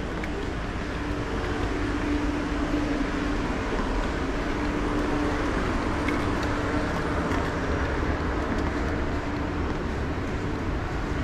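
Steady background hum and hiss of an MRT station concourse, with a faint, unchanging low tone running through it and no distinct events.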